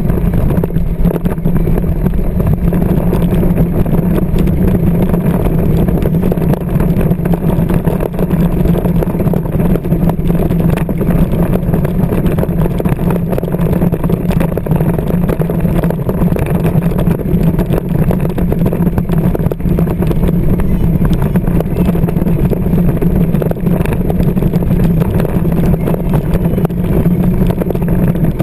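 Battery-powered John Deere Ground Force ride-on toy tractor driving steadily, its electric drive motors and gearbox giving a constant low hum with noise over it and no stops.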